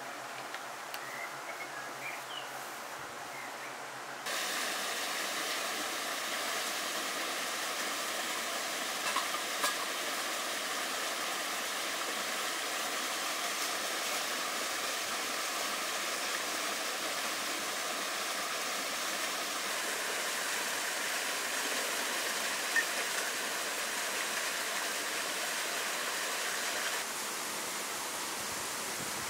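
Spring water running steadily from a spout and splashing onto stones. It cuts in suddenly about four seconds in, after a few faint chirps.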